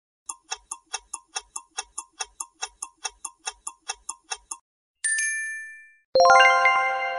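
Clock-ticking sound effect counting down a quiz timer, about four ticks a second for some four seconds. Then a single bright chime about five seconds in, and a second later a loud rising run of bell-like tones that ring on together.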